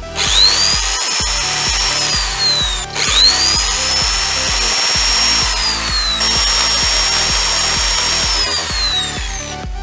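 Small handheld electric drill drilling holes in a PVC wheel hub: its motor whine rises as it starts, cuts out briefly about three seconds in, starts again, and winds down near the end.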